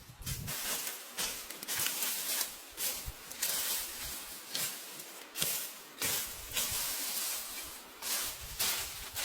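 Repeated rough scraping strokes, irregular, one or two a second.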